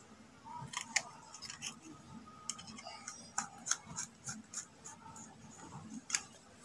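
Faint, irregular clicks and scrapes of a screwdriver working a brass terminal screw on a wall switch, with a copper wire being fitted under it.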